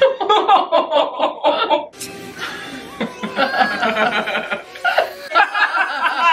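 Two women laughing hard together. It opens as a quick run of ha-ha bursts, with film soundtrack music underneath.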